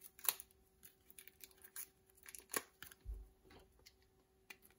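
Faint, scattered clicks and crinkles of plastic shrink wrap being slit with a blade and peeled off a deck of game cards, with a soft low bump of handling about three seconds in.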